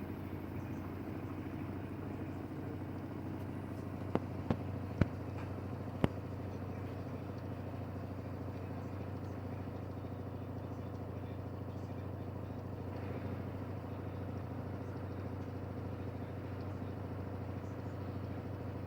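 LG washer-dryer running steadily, a low even hum with a faint steady tone above it. Four sharp clicks come between about four and six seconds in.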